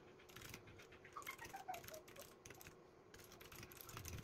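Fingers typing on a Royal Kludge compact mechanical keyboard: faint runs of quick key clicks with short pauses between them.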